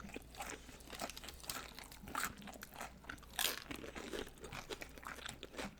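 Close-up crunching and chewing of loaded tortilla-chip nachos, an irregular run of crisp crunches with a couple of louder ones, the loudest about three and a half seconds in.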